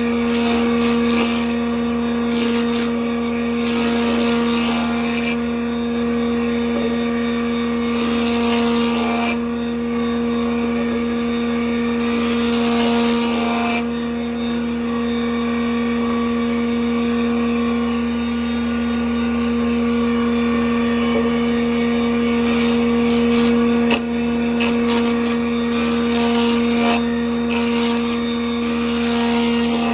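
Band saw running with a steady hum, its blade cutting into wood sheet several times in hissing sawing passes of one to two seconds each.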